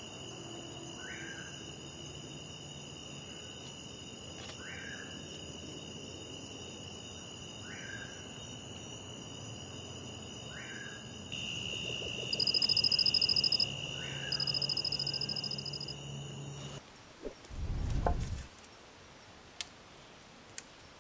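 Night forest chorus of insects: several steady high-pitched trills, with a short rising call, likely a frog, repeating every three to four seconds. About halfway through a louder pulsing insect buzz joins. The night sounds then cut off suddenly, followed by a loud low rumble and a few faint clicks.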